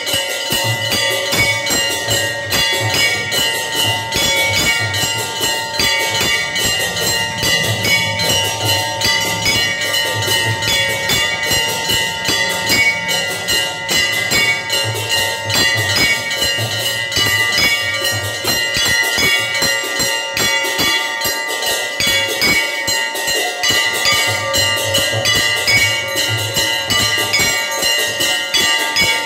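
Temple bells struck rapidly and continuously, their metallic ringing tones held steady throughout, with a low beat underneath that comes and goes.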